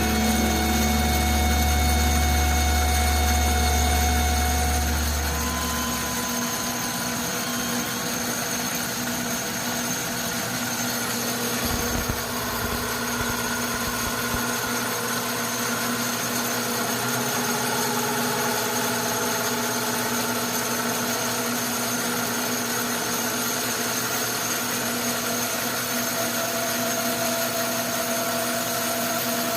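Atlas metal lathe running steadily while facing aluminum, a constant machine whine with several fixed tones. A deep hum drops away about six seconds in, and a brief knock comes near the middle.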